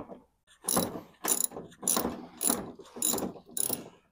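Hand socket ratchet with an extension clicking as it is swung back and forth, loosening a bumper screw up inside the wheel well. It makes six quick runs of clicks, a little under two a second, starting about half a second in.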